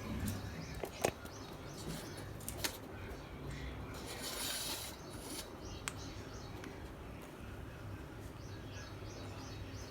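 A pet parrot making small sounds: a few sharp clicks, a brief hiss about four seconds in, and faint soft chirps near the end.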